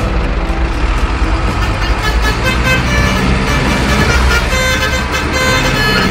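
Steady deep truck-engine rumble, with short higher horn-like tones sounding over it from about two seconds in.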